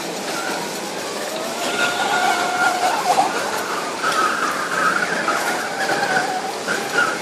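Drawn-out, wavering squeals rise above the steady hubbub of a busy supermarket, the sound of rubber dragging or wheels squeaking on a tiled shop floor.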